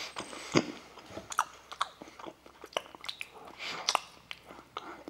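A person chewing a bitten-off piece of white chocolate lollipop close to the microphone, with irregular small crunches and clicks.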